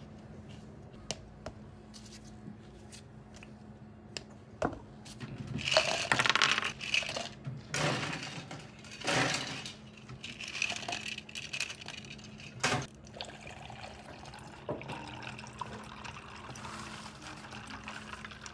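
Handling sounds of bubble tea being made by hand: plastic cups clicking and knocking as they are picked up and set down, with short spells of liquid pouring, the last into a cup near the end. A faint steady hum runs underneath.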